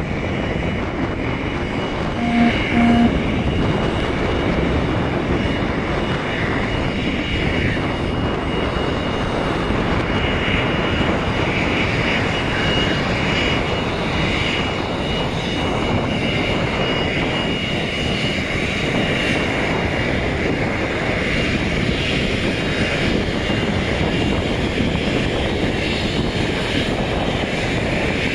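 Cessna business jet's turbofan engines running as it taxis: a steady high whine over a dense rushing hiss, with wind on the microphone. Two short beeps about two seconds in.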